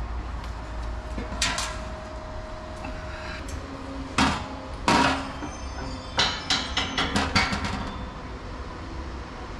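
Metal clanks and knocks on steel exhaust tubing, several of them ringing briefly. There are single knocks about 1.5, 4 and 5 seconds in, then a quick run of about six knocks near the end, over a steady low hum.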